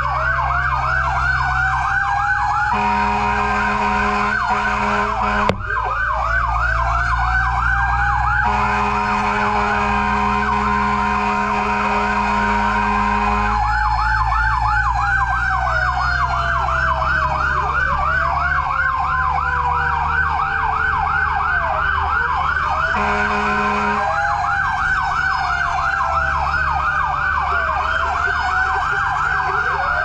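Fire truck's siren sounding, with a fast yelp sweeping up and down several times a second and slower rising and falling wails over it. Long, steady horn blasts come in about three seconds in, again from about nine to thirteen seconds, and briefly near twenty-three seconds, over the low rumble of the engine.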